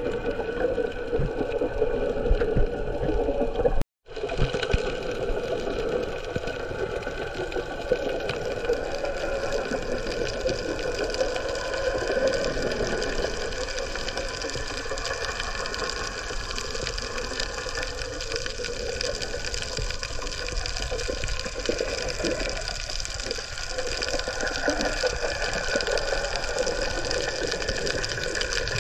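Underwater sound picked up by the camera while snorkeling over a reef: a steady wash of water noise under a constant mechanical hum of several held tones. It drops out briefly about four seconds in.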